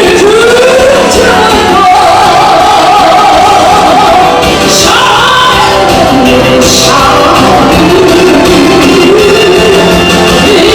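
A pop song with a singer's voice over a percussion-backed band, loud and continuous.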